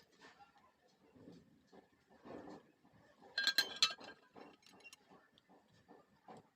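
Scattered light metal taps and clinks, with a quick cluster of sharp, ringing clinks about halfway through: metal tools and workpieces being handled in a blacksmith's workshop.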